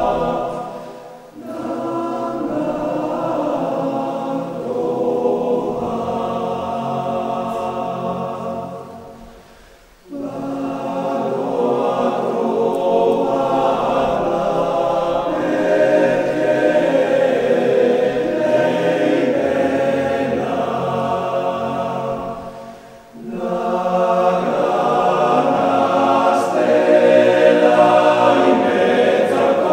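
Background choral music: a choir singing long, held phrases, with short breaks between phrases about a second in, near ten seconds and near twenty-three seconds.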